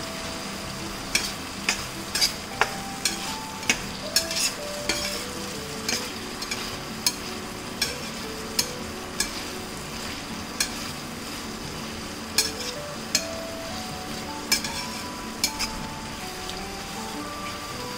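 Chickpeas in tomato sauce sizzling in a stainless steel frying pan while a metal spatula stirs them. The spatula scrapes and clinks against the pan at irregular intervals, often one or two clinks a second.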